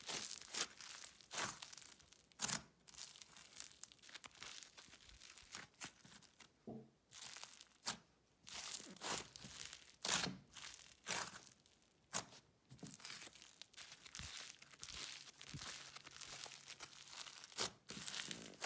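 Butter microfoam slime with foam beads being squeezed and pressed by hand, giving irregular soft crunches and crackles.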